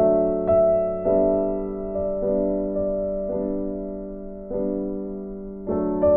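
Background music of slow, soft piano chords, each struck and left to fade, a new one coming every second or so.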